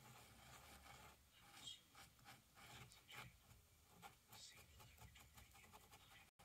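Faint scratching and dabbing of a thin paintbrush working paint onto a canvas, a quick run of short strokes. The sound cuts out briefly near the end.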